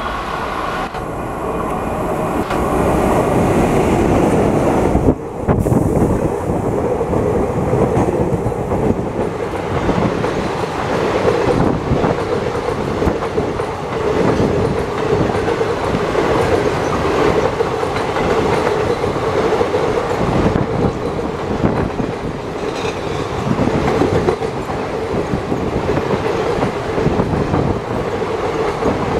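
Express train of passenger coaches hauled by a WAP-4 electric locomotive passing at speed, its wheels clattering rapidly and without let-up over the rails.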